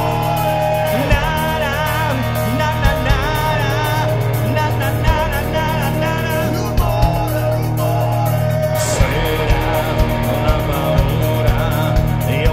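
Live rock band playing with electric guitars and drums, and a singer's voice wavering over the top in the first few seconds, with a regular drum beat throughout.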